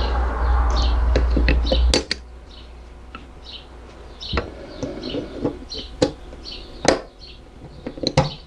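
Small metal clicks and clinks of hand tools as a torque wrench's ratchet head is put back together with circlip pliers. A low steady rumble cuts off suddenly about two seconds in, and short chirps repeat throughout.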